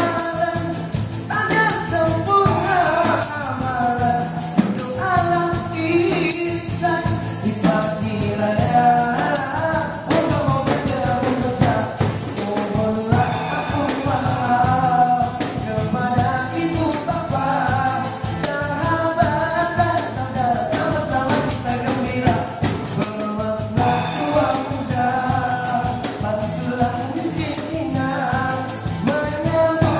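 Live acoustic band playing: voices singing a melody over strummed acoustic guitars, with a tambourine shaken along to the beat.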